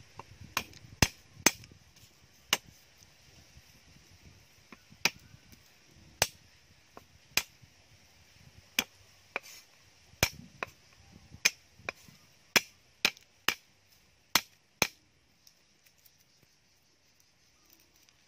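Sharp knocks of a knife blade striking a thick round wooden chopping block as garlic cloves are trimmed, about eighteen at uneven intervals, stopping about three seconds before the end.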